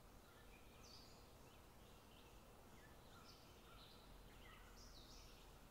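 Near silence, with faint, short bird chirps coming every half second to a second.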